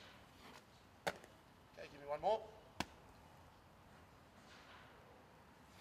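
Two sharp slaps of a rugby ball striking hands, about a second and a half apart, with a short spoken word or call between them.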